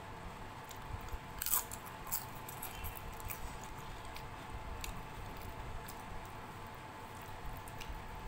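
Close-up eating sounds: crisp fried papad crunching, loudest in a cluster of sharp crackles about one and a half to two seconds in, then chewing with scattered small crunches.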